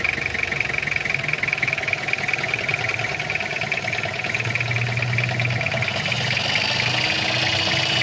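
Toyota 2C four-cylinder diesel engine idling with a steady, fast diesel clatter while its injection pump is being adjusted; the tone shifts slightly about six seconds in.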